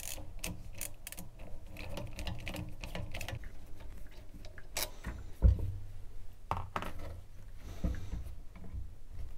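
A hand driver clicking quickly as it backs out the bolts of the relief valve cover on a brass Watts 909 backflow assembly. It is followed by a few separate metal knocks as the cover and parts are handled, the loudest about five and a half seconds in.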